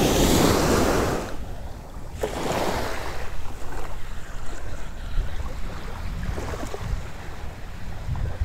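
Surf washing up the beach, loud for about the first second, then dropping suddenly to small waves lapping at the shoreline, with wind rumbling on the microphone.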